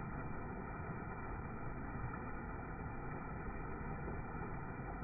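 Floodwater in a creek pouring over a small rock-ledge waterfall: a steady, low, muffled rushing. It is heard slowed down with the slow-motion footage, which pitches the water sound low.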